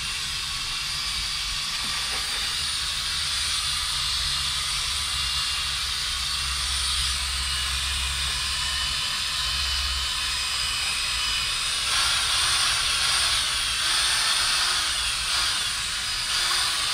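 Variable-speed electric drill spinning a foam cutting pad against a plastic headlight lens to work in cutting compound. It runs as a steady whir, a little louder from about twelve seconds in.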